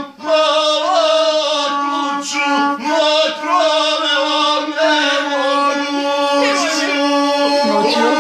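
A gusle, the single-stringed bowed Balkan fiddle, played with a man singing a chant-like song over it. A steady held tone runs beneath the bending vocal line.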